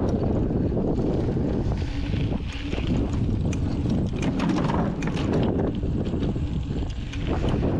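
Wind buffeting the microphone of a camera mounted on a Giant Trance mountain bike as it rolls fast down a dirt trail, with tyre noise and the bike's rattling clicks. A run of clattering comes about halfway through as the tyres cross wooden planks.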